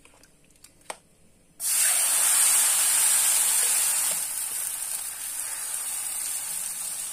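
Vegetable crêpe batter sizzling in a hot, oiled frying pan. The sizzle starts suddenly about a second and a half in, after a faint click, then eases to a steadier, quieter sizzle.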